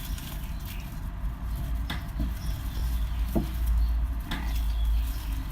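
Crunchy slime being squished and kneaded by hand, giving scattered crackles and pops over a low rumble.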